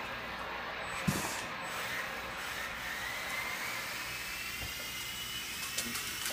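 Small toy RC helicopter's electric motor and rotor whining as it spins on the floor, the pitch rising over a few seconds. A single knock about a second in.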